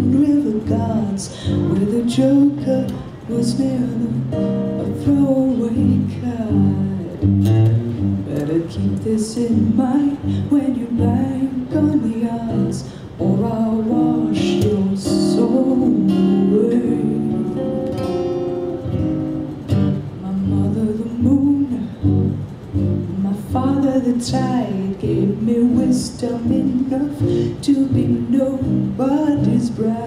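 A woman singing a folk song while playing an acoustic guitar.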